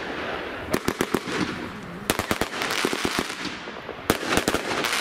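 Aerial fireworks bursting overhead: a continuous crackle of gold crackling stars, punctuated by clusters of sharp bangs about a second in, about two seconds in and again about four seconds in.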